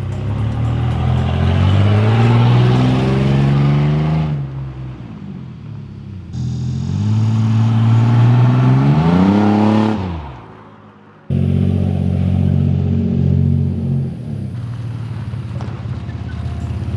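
Chevy Blazer's 4.3-litre V6 running loud through an unbolted, opened exhaust, accelerating twice with the pitch climbing each time, then running steadier at a lower pitch from about eleven seconds in.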